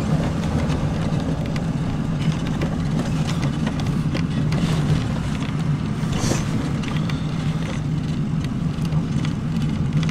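Motor vehicle's engine running steadily at low speed, heard from inside the cabin as a constant low hum, with a brief hiss about six seconds in.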